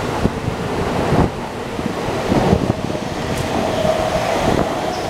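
JR East E231 series electric train departing and rolling past at close range: a continuous rushing rumble with quick wheel clacks over the rail joints, and a steady hum that comes in a little over halfway through.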